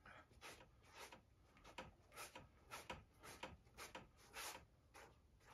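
Gloved hand smearing acrylic paint across a stretched canvas, faint rubbing swishes at roughly two strokes a second.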